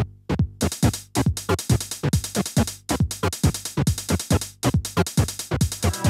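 Eurorack modular synth patch built around the Neuzeit WARP wavetable and additive oscillator, playing a fast, even sequence of short plucked electronic notes, about four a second, each with a quick downward pitch sweep.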